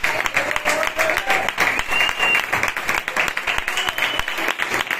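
Audience applauding with dense, steady clapping, and a few voices calling out over it.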